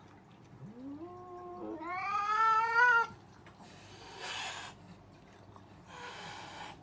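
A cat's drawn-out aggressive yowl in a standoff with another cat, rising in pitch and growing louder before it cuts off sharply about three seconds in. Two short hisses follow.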